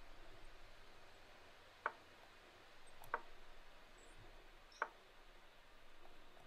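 Three short, separate clicks, each made as a piece is moved in an online chess game: the move sound of the game client. They fall about two seconds in, about a second later, and just before five seconds.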